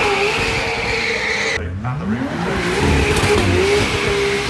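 High-performance cars making smoky launches off a start line: an engine held at high revs while the tyres spin and squeal. About a second and a half in the sound breaks off suddenly, then a second car's engine rises sharply in pitch and holds high as it pulls away with its tyres squealing.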